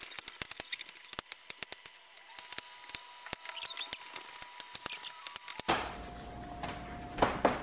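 Chef's knife chopping zucchini on a wooden cutting board: quick, irregular knocks of the blade through the squash onto the board, several a second. Near the end the chopping gives way abruptly to a steady low hum with a couple of knocks.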